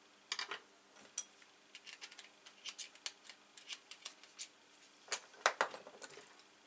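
Small metal parts of a Euro-cylinder lock clicking and tapping together as it is assembled by hand. There is a cluster of clicks just after the start, lighter scattered clicks through the middle, and a louder run of clicks about five seconds in.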